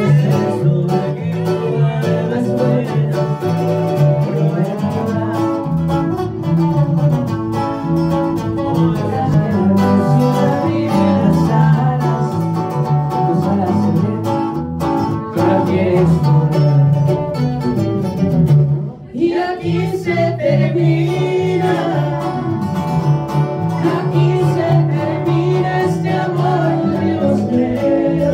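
Live band music on plucked guitars: a twelve-string acoustic guitar and a second guitar over an electric bass, with a man singing. The playing drops out briefly about two-thirds of the way through, then picks up again.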